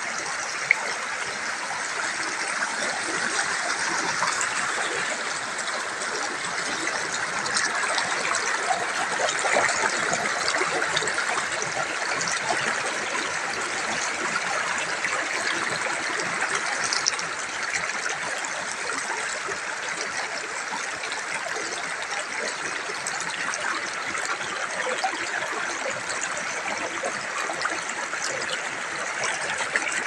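Shallow rocky river flowing and splashing over stones, a steady rushing and rippling of water. One brief click about a second in.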